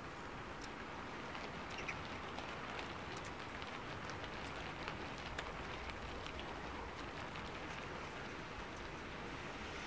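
Steady patter of rain, with scattered faint small clicks of tweezers handling parts of a Seiko 7T32 quartz chronograph movement.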